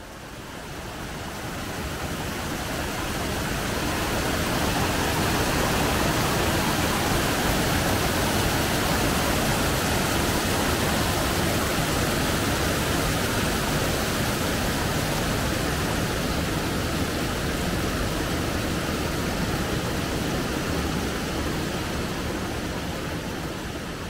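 Rushing water of a mountain waterfall and its rocky stream: a steady, even roar that fades in over the first few seconds.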